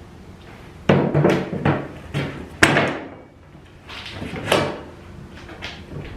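A run of knocks, clunks and scrapes from objects being handled on a workbench, loudest about a second in and again a little later.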